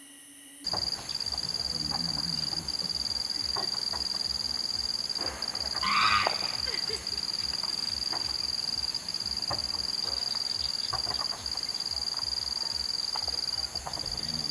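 Tropical forest ambience: a steady, high-pitched insect drone comes in suddenly about a second in and holds. A brief, loud animal call sounds about six seconds in.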